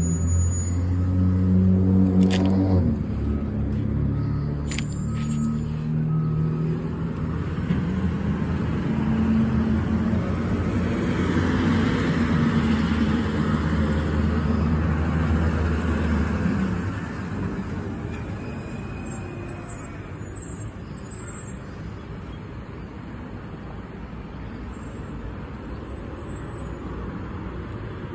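Garbage truck's diesel engine running, with a couple of sharp clicks in the first few seconds. The engine noise swells to a peak about twelve seconds in, then drops away about seventeen seconds in, leaving a quieter traffic background.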